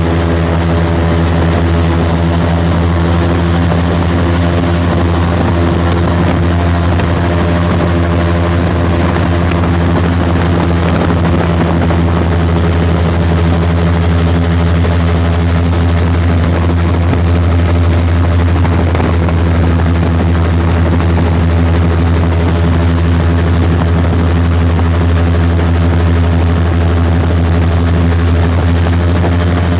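Airboat's engine and air propeller running steadily under way, a loud, even drone that holds a constant pitch throughout.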